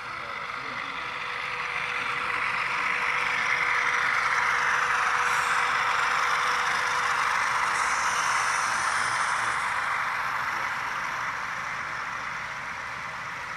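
HO-scale model diesel locomotives running past, a steady rushing sound that swells to its loudest about four to six seconds in and then fades away.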